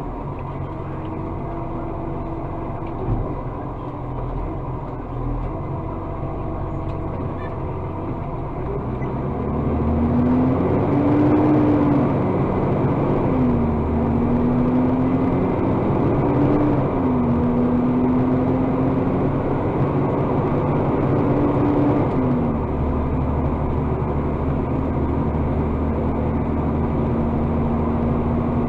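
Iveco Acco garbage truck's diesel engine and hydraulics running, heard from inside the cab while the Bucher side-loader arm is worked from the joystick. About ten seconds in the engine speeds up for the hydraulics, its pitch rising and falling several times, then it holds at a steady higher pitch.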